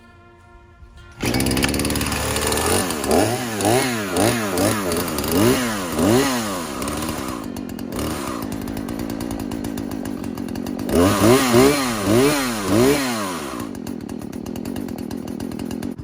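Husqvarna 120 Mark II two-stroke chainsaw starting up loud about a second in and revving up and down about twice a second in two bouts, running more steadily between them and dropping lower near the end.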